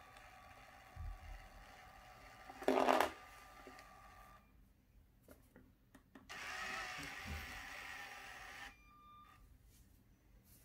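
Lego Boost motors whirring as the robotic arm moves, with a faint steady whine at first. A brief loud burst comes about three seconds in, and a steadier motor run lasts about two and a half seconds past the middle. Small clicks of keyboard keys fall between the moves.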